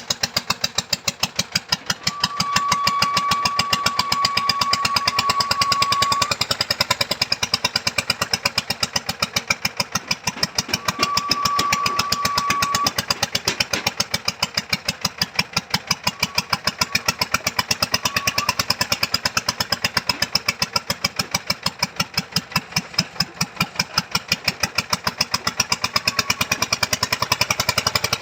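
Engine-driven foundation-boring machine running with a fast, even knocking. A steady high whine comes in twice, for about four seconds and later for about two, and the sound gets louder while it lasts.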